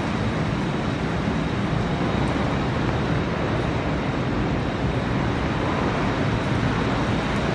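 Steady, even rush of falling water from a waterfall, unchanging throughout.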